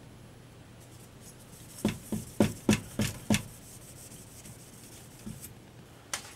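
A tissue rubbed hard over a label on a metal heatsink, heard as a quick run of about six short scrubbing strokes a couple of seconds in, then a single sharp tap near the end.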